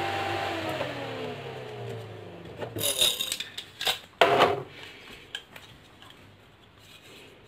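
A 12-volt axial cooling fan winding down after its power is cut, its whine and hum falling steadily in pitch and fading over about two seconds. Then come a few sharp knocks and clatters as the fan is handled and lifted off the bench.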